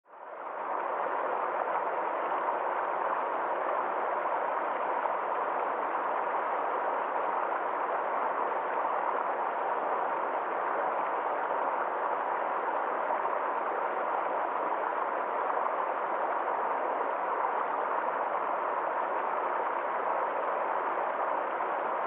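Steady rushing of a fast stream tumbling over rocks, fading in during the first second and then holding even.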